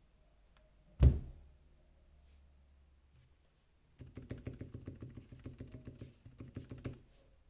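A single loud thump about a second in, then fast typing for about three seconds on a mechanical keyboard with lubed Cherry MX Silent Red switches, each keystroke a soft, dull tap.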